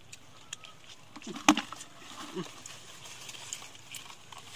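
A single sharp knock about one and a half seconds in, with brief low voice-like sounds around it and another about a second later.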